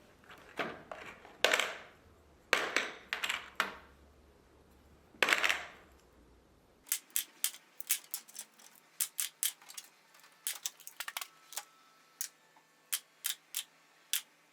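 Small hard plastic pieces being handled: a few louder rustles and knocks, then from about halfway through a quick run of light, sharp clicks and taps, several a second, like small printed parts being snapped loose and set down.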